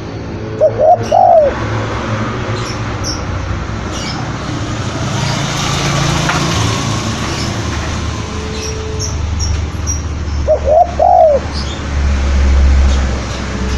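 Spotted dove cooing: two short bursts of arched coos, one about a second in and another about ten seconds later, with small birds chirping faintly in the background over a steady hiss.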